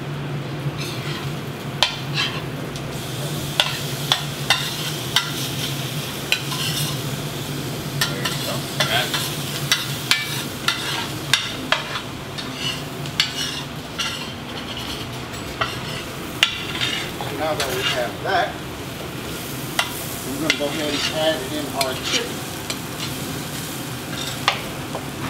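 Diced onions and minced garlic frying in butter in a pan, sizzling while a utensil stirs them, with frequent sharp clicks of the utensil against the pan. A steady low hum runs underneath.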